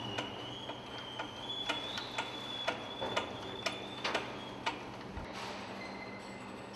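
Hand-cranked wire-rope winch clicking about twice a second as its crank is turned, its ratchet pawl stepping over the gear while the drum winds in the cable to hoist a load. The clicking stops about five seconds in. A steady high whine runs underneath.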